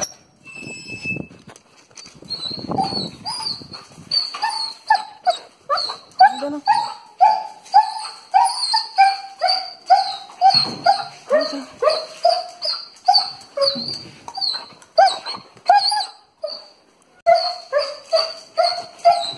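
A Doberman crying in short, high-pitched whining yelps, about two a second, with a brief pause near the end: excited greeting of its owner after a long separation.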